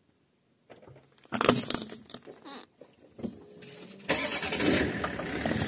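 Car tyre rolling onto a small metal camping gas cartridge to crush it: a sudden loud noise about a second in, then a louder sustained noise from about four seconds in as the tyre bears down on the canister.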